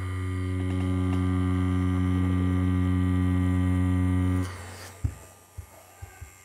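Tattoo machine running with a steady low buzz as it pulls a line through synthetic practice skin, cutting off about four seconds in. A few soft knocks follow.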